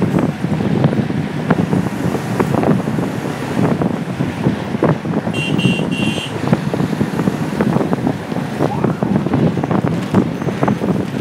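Wind buffeting a microphone held out of a moving bus's window, over the noise of the bus running along the road. A horn gives two short toots about five and a half seconds in.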